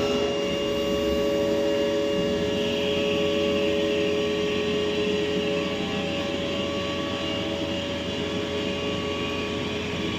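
CNC lathe running through the final turning of a PTO clutch shaft: a steady machine whine of several fixed tones over a constant hiss, with a brighter hiss setting in about two and a half seconds in.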